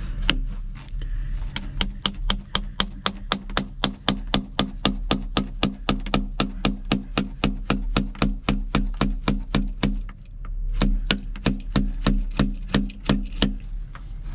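Hammer blows on a rusty iron grate: rapid, evenly spaced metallic strikes, about three or four a second, each with a short low ring. They pause briefly about ten seconds in, then resume.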